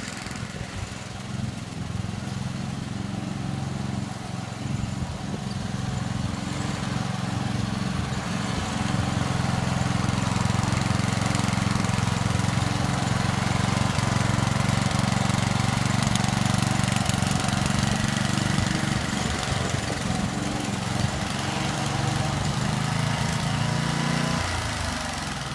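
Three-gang lawn mower's engine running steadily. It grows louder over the first several seconds, and its note drops away shortly before the end.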